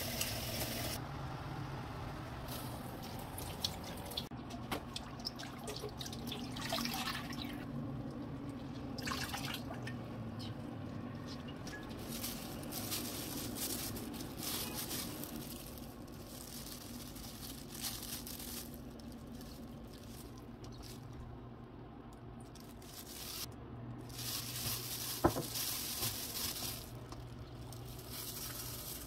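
Water dripping and trickling as blanched spinach is squeezed out by hand over a stainless steel colander in a sink, with a few sharp clicks and knocks of utensils, the loudest near the end.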